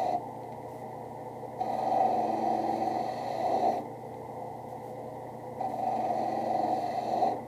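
Drill press running with a sanding drum, its motor humming steadily, while a leather holster's edge is pressed against the spinning drum. There are two sanding passes of about two seconds each, with the drum spinning on its own between them.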